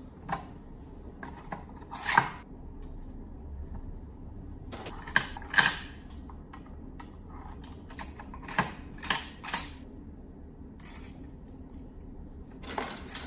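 Metal hand tools, Allen keys, snips and a scraper, being set one by one into the slots of a 3D-printed PLA tool holder: scattered clicks and clinks, the loudest about two seconds in, with small clusters around five to six seconds and again around nine seconds.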